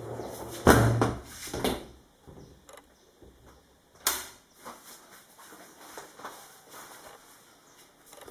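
Knocks and handling sounds in a small room: a loud thump with some rattle about a second in, a sharp click about four seconds in, and softer knocks between.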